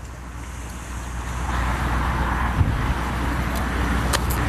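Road traffic noise: a steady low engine hum, with a vehicle's passing noise swelling up about a second and a half in. A few faint clicks near the end.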